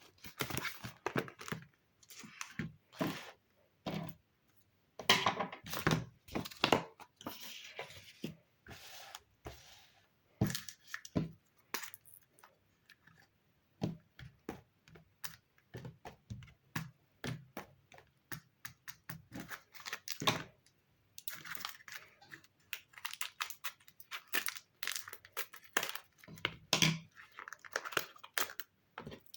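Paper being handled at close range: crinkling and tearing in irregular bursts, with sharp clicks and light taps between short pauses.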